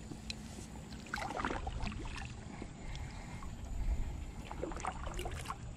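Kayak paddle strokes: a double-bladed paddle dipping and pulling through the water on alternate sides, with splashes and drips, the strongest strokes about a second in and again near the end.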